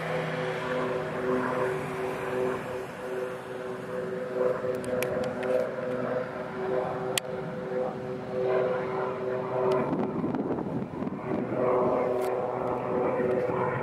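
Boeing 737-800's CFM56-7B turbofan engines at low taxi thrust: a steady whine of several tones as the jet taxis past and turns onto the runway. From about ten seconds in, a rougher rushing noise joins the whine.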